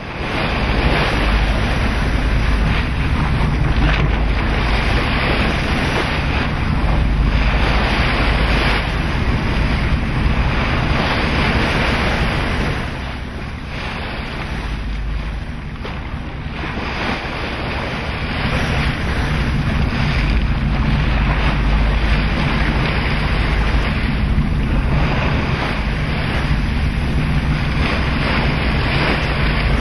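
Wind buffeting the microphone over the steady low hum of a boat's engine and the wash of the sea. The wind eases for a few seconds around the middle, then picks up again.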